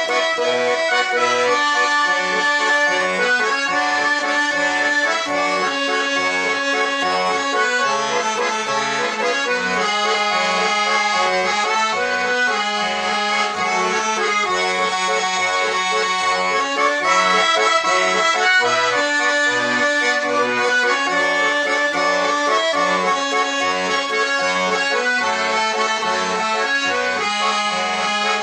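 Russian garmon (button accordion) playing a slow song melody with no singing. The right hand carries the tune in held notes over an even bass-and-chord beat from the left-hand buttons.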